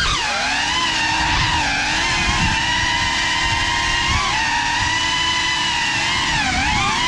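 GEPRC CineLog35 cinewhoop's four brushless motors and ducted props whining in flight. The pitch dips sharply and recovers right at the start, wobbles with throttle, and dips twice more near the end, over a low rumble of prop wash.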